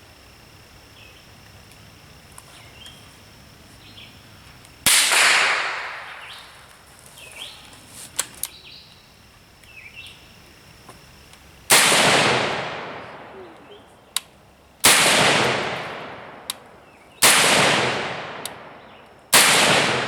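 Five rifle shots: one about five seconds in, then four more in quick succession about two to three seconds apart, each dying away in a long echo. Small sharp clicks fall between some of the shots, and birds chirp faintly.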